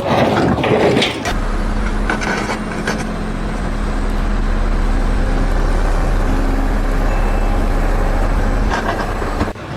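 Heavy vehicle's engine running steadily with a low, even hum.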